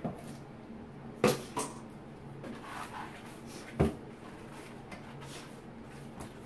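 Small hand brush and plastic dustpan sweeping spilled cleanser powder off a floor: light brushing with a few sharp knocks, the loudest about a second in and just before four seconds in.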